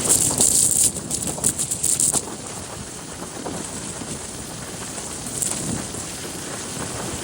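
Wind buffeting the microphone on a moving motorcycle: harsh crackly gusts for the first two seconds, then a steadier rush.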